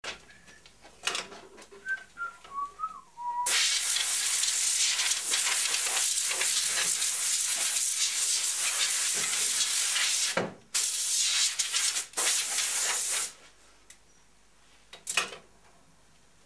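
Compressed air hissing from a hand-held air-line nozzle in two long blasts, with a short break between them about ten seconds in. A few light knocks come before and after.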